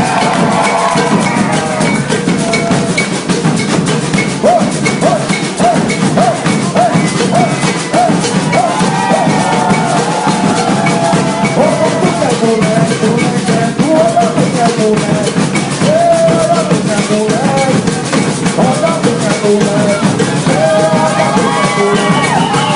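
Maracatu music: a steady drum-and-percussion groove with a pitched melodic line over it, including a run of short repeated notes for several seconds near the start.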